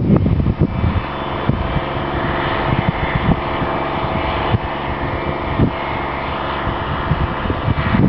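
Challenger MT765B rubber-tracked tractor's six-cylinder Caterpillar diesel running steadily under load while pulling a seven-furrow reversible plough through the soil. Wind buffets the microphone during the first second.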